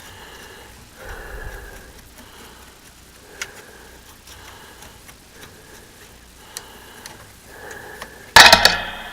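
A short, loud hiss of canned compressed air blowing dust out of an old radio's chassis, starting suddenly near the end and trailing off within a second. Before it there are only faint, low sounds.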